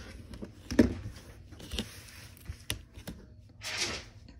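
Rotary cutter slicing through layered fabric along an acrylic ruler on a cutting mat, with a sharp knock just under a second in, a few lighter clicks, and a sliding rasp near the end as the ruler and fabric are moved on the mat.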